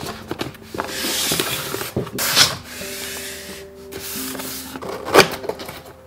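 Box packaging being handled: rubbing and sliding sounds with a sharp knock about five seconds in, over soft background music with held notes.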